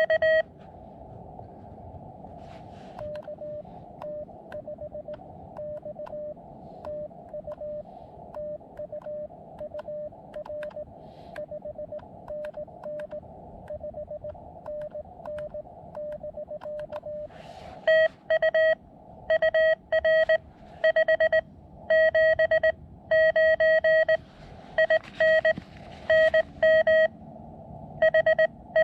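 Morse code (CW) from a portable ham radio transceiver: a single beeping tone keyed in dots and dashes over steady receiver hiss. Two stations take turns, a fainter signal for the first half and a much louder, sharper one from about two-thirds of the way in.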